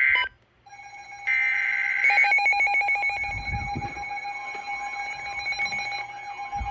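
Emergency Alert System tones from two alerts overlapping. A burst of screechy header data cuts off just after the start, then a steady attention tone comes in. More header data bursts play over it about a second later, and from about three seconds a repeating warble rises and falls beneath the steady tone.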